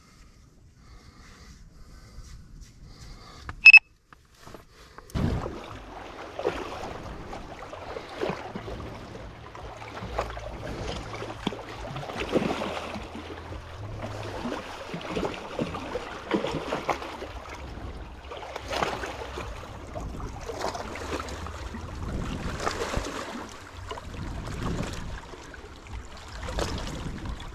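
Water splashing and sloshing in repeated surges, roughly one every second or two, after a quiet start broken by a single short, sharp pitched sound.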